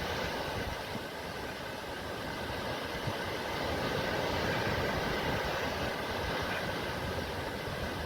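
Sea surf, a steady rushing wash of waves that swells slightly in the middle.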